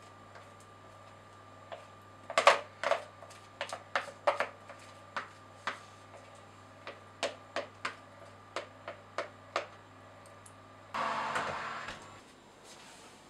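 Thick chocolate cake batter being poured and worked out of a ceramic bowl into a loaf pan: irregular sharp clicks and taps, about two a second. About eleven seconds in, a brief rushing noise lasts about a second.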